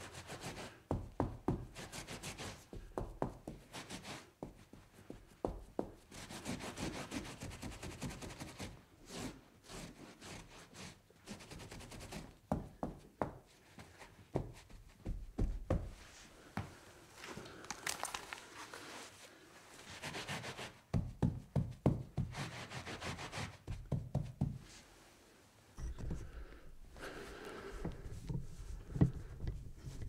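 Sound effect of cleaning up a spill: rubbing and wiping, broken up by many sharp knocks and scrapes.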